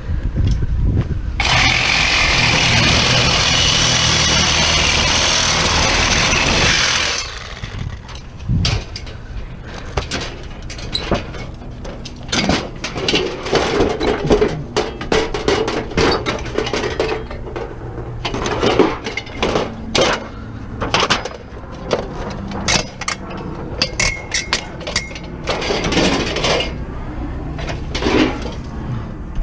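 A power tool runs loudly for about five seconds, likely cutting scrap metal, then stops; after that comes a long run of irregular metal clanks and knocks as scrap is handled, over a steady low engine hum.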